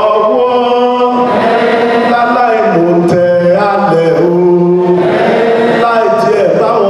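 Voices chanting together in long held notes that step from one pitch to the next, an opening chant paying respects to the elders.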